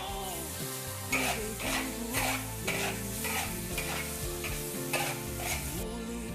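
Metal spatula scraping and tossing sliced pork and vegetables in a sizzling wok while stir-frying, about two strokes a second. The strokes stop near the end.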